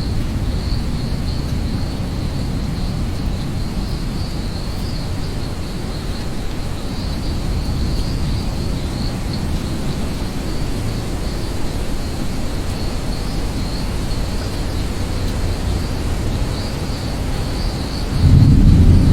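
Rainstorm ambience: a steady low rumble with insects chirring in a thin, pulsing high tone throughout. A louder low rumble of thunder comes in near the end.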